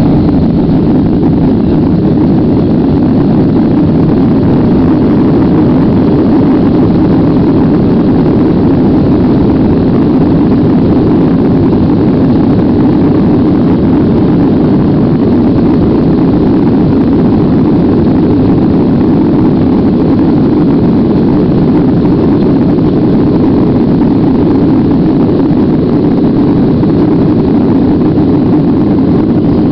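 Steady, loud rumble of an airliner's jet engines and cabin noise, heard from a window seat over the wing as the plane rolls along the ground ahead of takeoff.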